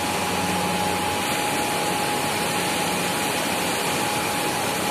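Steady drone of running factory machinery, with a constant high hum held throughout.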